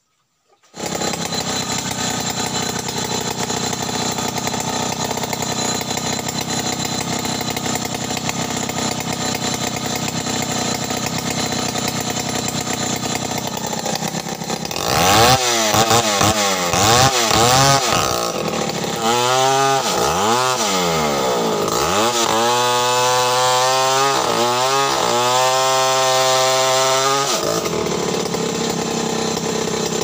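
Stihl 070 two-stroke chainsaw comes in abruptly about a second in and runs steadily at speed. From about halfway it revs up and down over and over, its pitch rising and falling for some ten seconds, then settles back to a steady run near the end.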